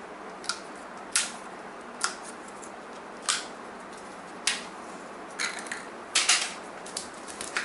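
BoomCo Smart Stick foam darts pulled one by one off a plastic shield target, each giving a sharp click, about one a second, then several quicker clicks near the end as the last darts are gathered.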